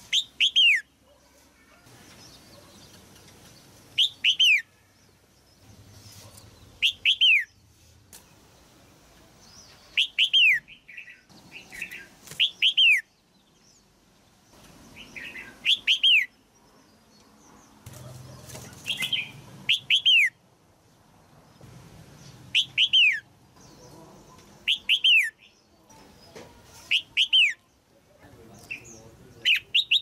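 Red-whiskered bulbul calling: short, sharp whistled notes that fall in pitch, mostly in quick pairs, repeated about every two to three seconds. Billed as a female's call, the kind used to stir up adult males.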